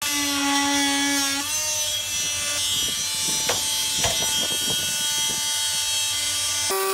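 Angle grinder cutting through old fibreglass laminate around a boat's chainplate. Its motor whine drops in pitch about one and a half seconds in as the disc bites, then runs on under load with scratchy grinding. Just before the end the sound switches abruptly to a different steady whine.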